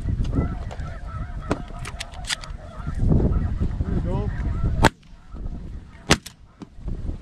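Snow geese honking, then two shotgun shots about a second apart as the hunter fires from a Benelli shotgun.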